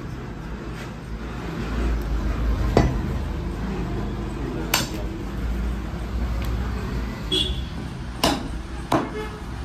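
Knife and cleaver striking a wooden chopping block while a chicken is cut up: a few sharp knocks, the two loudest about a second and a half from the end, under a second apart, as the cleaver chops.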